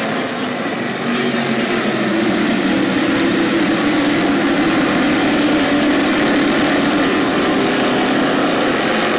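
A pack of dirt modified race cars running at speed around the oval, their V8 engines blending into one loud, steady drone that swells about a second in.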